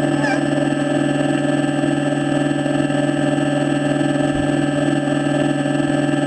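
Model RC excavator's motor running, a steady electric hum of even tones that holds the same pitch throughout, with a faint short chirp near the start.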